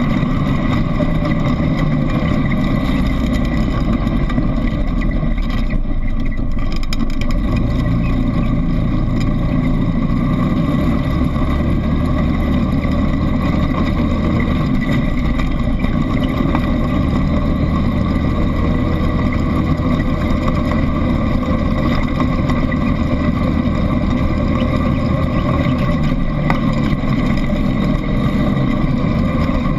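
ATV engine running under way on a dirt trail, loud and steady, easing off briefly about six seconds in and changing pitch a few times as the throttle varies.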